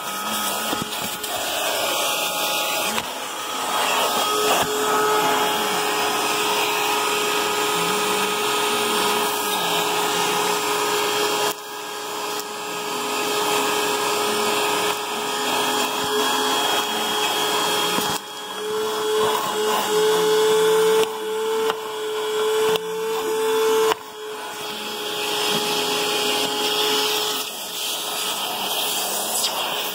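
Vacuum cleaner running steadily on a car's floor carpet, a continuous motor whine over the suction noise. The whine rises a little for a few seconds in the middle, and the level dips briefly twice.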